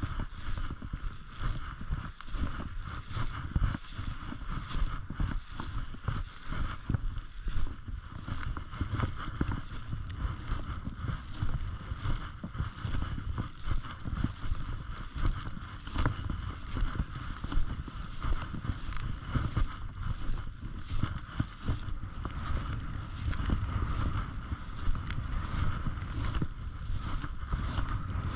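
Snowshoes crunching and shuffling through deep snow, uneven steps with no clear rhythm, over wind buffeting the microphone with a steady low rumble.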